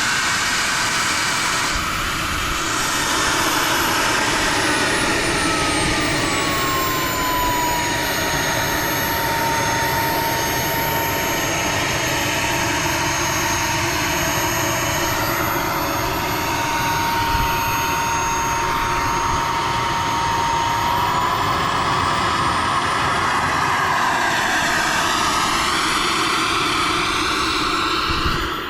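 RC model jet's turbine engine running with a loud rushing noise and a high whine. The whine drops in pitch as the throttle comes back, holds steady for a long stretch, then climbs again as the turbine spools up near the end.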